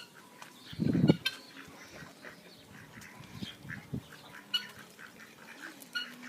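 Ducks quacking among other farmyard birds, in short scattered calls. A brief low rumble about a second in is the loudest sound.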